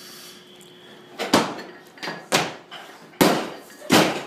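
A 130 kg barbell loaded with rubber bumper plates is dropped onto a wooden lifting platform. It lands with a loud bang about a second in, then bounces three more times, each bounce coming a little sooner than the last.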